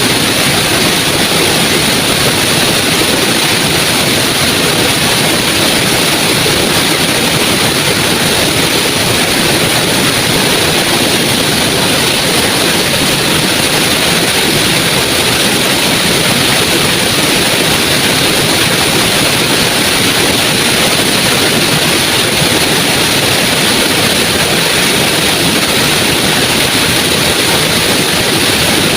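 Small waterfall and stream running: a loud, steady rush of falling water.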